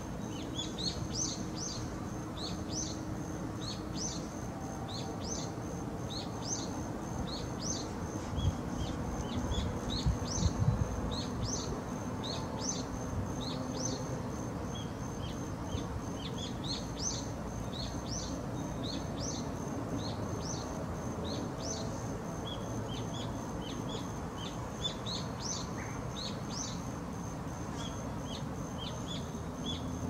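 Small songbirds chirping over and over, with many short, quick rising notes, against a thin steady high whine. A low rumble swells briefly about a third of the way in.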